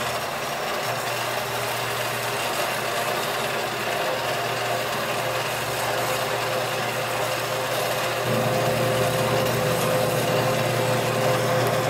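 Vertical bandsaw running, its blade ripping slowly along brass bar stock: a steady motor hum with the hiss of the cut. A steady whine joins about four seconds in, and the sound grows a little louder about eight seconds in.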